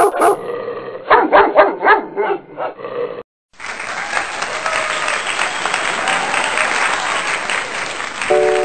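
A sharp click, then a dog barking in a quick run of short barks for about three seconds. After a brief gap, a crowd applauding steadily to the end.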